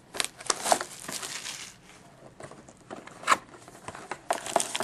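Hockey card packs being pulled out of a cardboard hobby box: crinkling foil wrappers and rustling cardboard, with scattered sharp clicks, the loudest about three seconds in.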